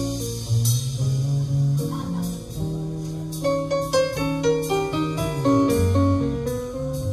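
Jazz ballad played by a small acoustic combo: a piano or vibraphone melody over double bass, with notes that ring and fade.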